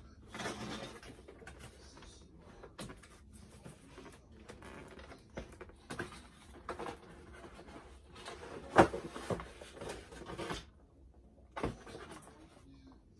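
Cardboard and plastic toy packaging being handled and opened, with scattered rustles and clicks and one sharper knock about two-thirds of the way through.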